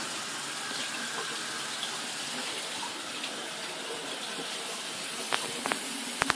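Bathroom sink tap running, a steady stream of water splashing into the basin over a child's hands. A few sharp clicks come near the end.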